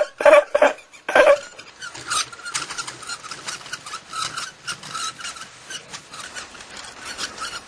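Short rasping scrapes repeating irregularly, several a second: something being rubbed back and forth across a surface.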